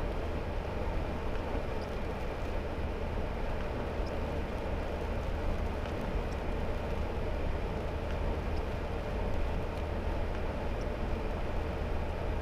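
Hummer H3 driving at steady speed on a wet paved road: an even, unbroken drone of engine and tyre noise, strongest in a deep low rumble, with a few faint scattered ticks.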